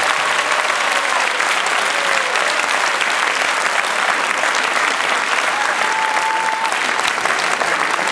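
A large audience applauding steadily, a dense even patter of many hands clapping.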